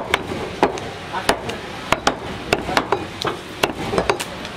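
Butcher's cleaver chopping beef on a wooden chopping block: a run of sharp chops, about three a second at an uneven pace.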